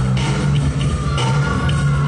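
Breaking-battle music played loud over the DJ's loudspeakers, with a steady beat and a heavy bass line.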